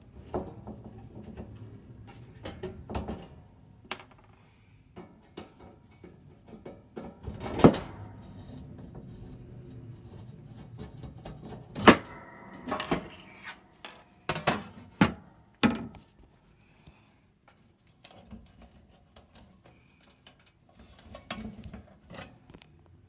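Handling noises: scattered clicks, knocks and clatter of hard objects being moved and set down, the loudest knocks about eight seconds in, twelve seconds in, and three more a few seconds later.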